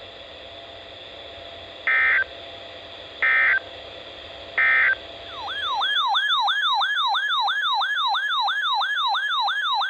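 Three short digital data bursts about 1.3 seconds apart over a steady hiss, the Emergency Alert System end-of-message tones that close a warning. About halfway in, a loud electronic siren-style alert tone starts, warbling up and down about three times a second.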